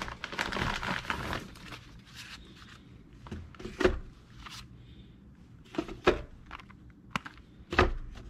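A plastic bag rustles as small cardboard boxes of 7.62x39 cartridges are pulled from it. Then come a few sharp knocks, about two seconds apart, as the heavy boxes are set down into a steel .50 cal ammo can.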